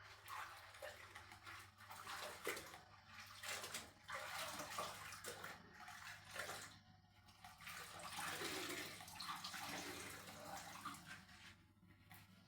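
Water sloshing and splashing in the shallow pool left under a removed shower tray as it is worked at and cleaned out, coming and going in uneven swells.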